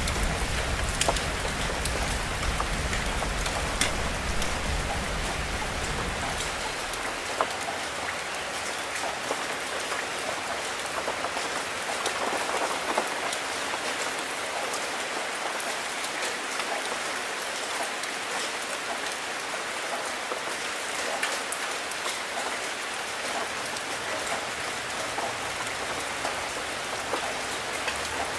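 Steady rain, a dense hiss with many small drop ticks through it. A low rumble underneath dies away about seven seconds in.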